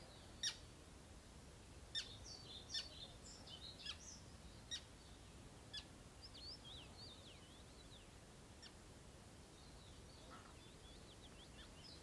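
Small birds chirping and twittering in short, high notes that rise and fall, busiest in the first half and again near the end, with a few sharp clicks among them; faint overall.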